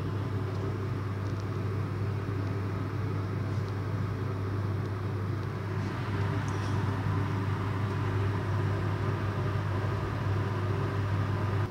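Steady low electric motor hum, such as a kitchen appliance running, with a few faint clicks.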